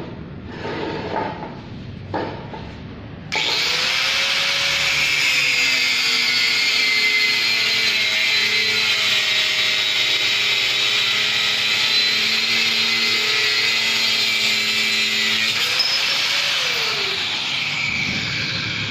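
Portable angle grinder with an abrasive cutting disc, switched on about three seconds in, its motor whining up to speed and then cutting through a steel bar held in a bench vise with a loud, high-pitched grinding screech. Near the end the motor winds down. The first seconds hold a few handling clicks and knocks.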